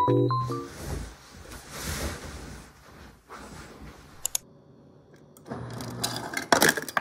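Bedding rustling as a duvet is smoothed over a bed, then, about five and a half seconds in, a refrigerator door dispenser whirring and dropping ice cubes with a clatter, loudest near the end.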